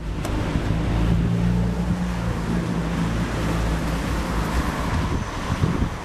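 Road noise inside a moving car: a steady low engine hum under a continuous wash of tyre and wind noise.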